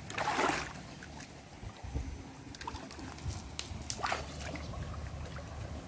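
Shallow stream water sloshing and splashing as a man crouches in it and works his hands through the water, with a brief rush of noise at the start and a sharper splash about four seconds in.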